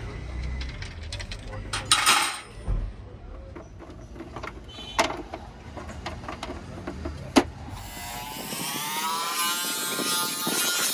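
A few sharp knocks and clicks from the plastic tail-light housing being handled, then, from about eight seconds in, a bench buffing machine runs with the red plastic lens pressed against its buffing wheel: a motor whine that rises and dips in pitch under a hiss of the wheel on the plastic.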